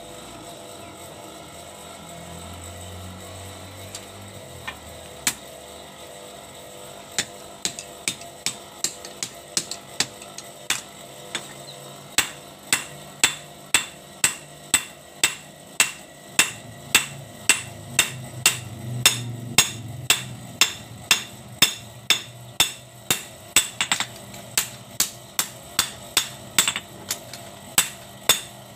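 Hand hammer striking a red-hot steel machete blade on an anvil, a long run of sharp ringing blows at about two a second that begins several seconds in.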